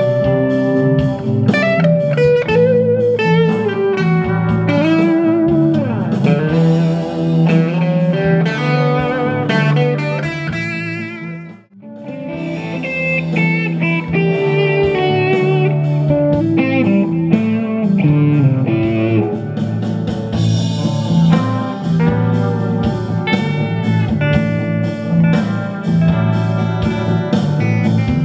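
Live guitar music: an acoustic and an electric guitar playing together, with wavering, bent lead notes. After a short break about halfway through, two electric guitars play through amplifiers.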